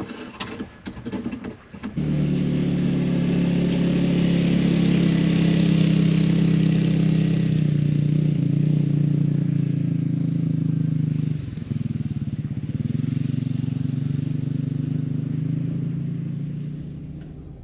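A vehicle engine running at a steady speed, starting about two seconds in, with a brief drop near the middle before it picks up again and eases off near the end.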